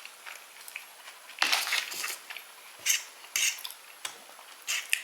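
A utensil scraping and clinking against a dish: a longer scrape about one and a half seconds in, then a few short clinks about a second apart.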